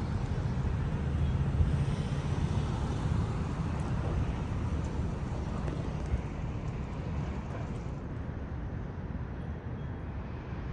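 Steady low rumble of city street ambience, mostly distant traffic hum, easing slightly in loudness about halfway through.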